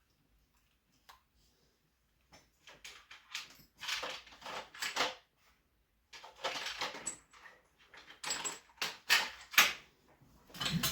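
Small metal lock parts clicking and scraping as a fresh shim is worked into a padlock core while it is gutted. Two runs of quick clicks and scrapes with a short pause between, the loudest sharp click near the end.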